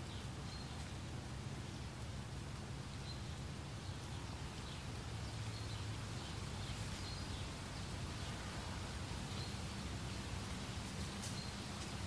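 Meadow ambience: a steady low wind rumble with short, high bird chirps scattered every second or two.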